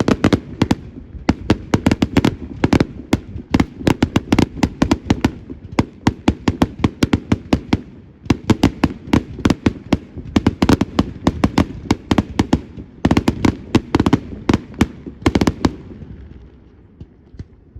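Fireworks display: dense volleys of sharp bangs and crackles, many a second, coming in repeated bursts and thinning out near the end.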